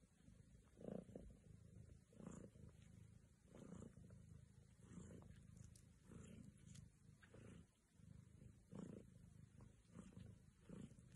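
Mother cat purring faintly over her newborn kittens, in slow swells about every second and a half.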